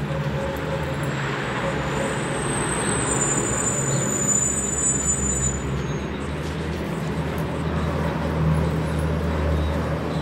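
Steady city street traffic rumble, with a faint high thin whine from about two to six seconds in.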